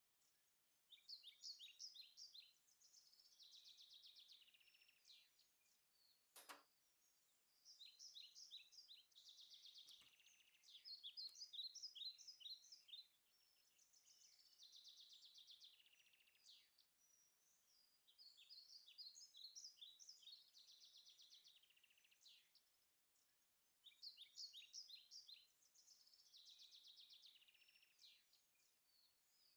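Small songbirds chirping and twittering faintly in quick runs of high notes that come and go every few seconds, with a couple of soft clicks about six and ten seconds in.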